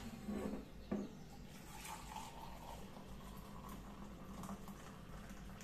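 Two light clicks as a stainless steel vacuum flask is picked up and its lid lever pressed, then milky tea pouring faintly from the flask into a mug.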